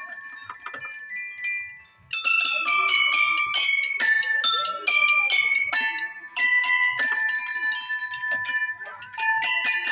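Several marching glockenspiels played together, metal bars struck with mallets in a ringing melody. The notes die away to a short pause about two seconds in, then the tune starts again with two or three notes a second.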